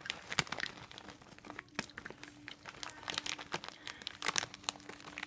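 Hot Cheetos snack bag crinkling, with many quick irregular crackles close to the microphone.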